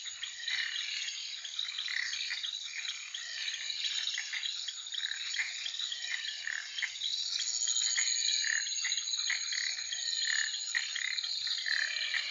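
Dense wetland chorus of frogs and insects calling over one another, with a steady high-pitched buzz joining about seven seconds in.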